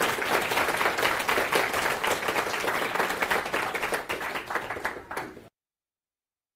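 Audience applauding: many hands clapping together, a dense spray of claps that cuts off suddenly about five and a half seconds in.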